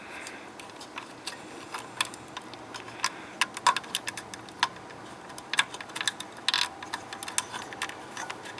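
Irregular light clicks and taps of small plastic wire connectors and cables being handled and plugged into an LCD monitor's power board.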